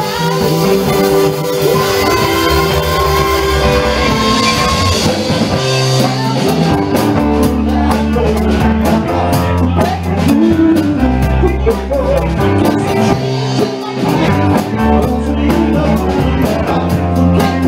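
Live rock band playing a song through a PA: electric guitars, keyboard and drum kit, with a man singing into a microphone. The drums and bass come in stronger about six seconds in.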